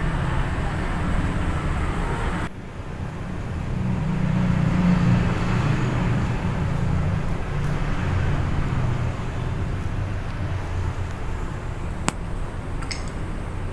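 Steady low rumble of background noise, broken by an abrupt drop about two and a half seconds in. A sharp click comes near the end.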